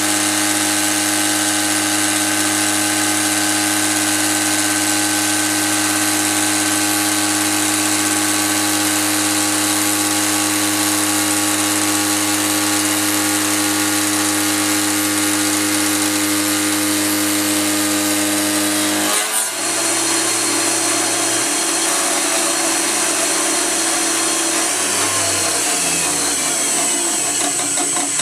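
CNC mill spindle turning a 2-flute insert cutter at 7000 RPM, roughing through 6061 aluminium with a loud, steady tone. About two-thirds of the way through the sound changes abruptly, and near the end the low tones fall in pitch as the machine winds down.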